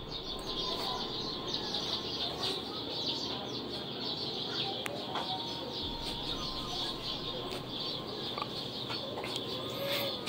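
Steady high-pitched chirping chorus in the background, many short chirps running together without a break, over a faint low hum.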